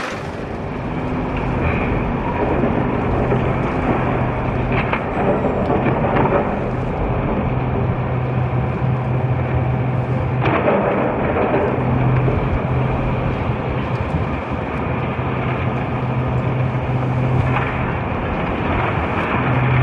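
Cat 390F excavator's C18 diesel engine running steadily under load while its hydraulic demolition crusher grinds and breaks reinforced concrete. Crunching rubble with several sharp cracks of breaking concrete, the loudest about ten seconds in.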